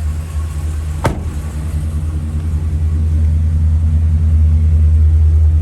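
Steady low rumble of a U-Haul truck, heard from inside the cab, growing louder about halfway through, with one sharp click about a second in.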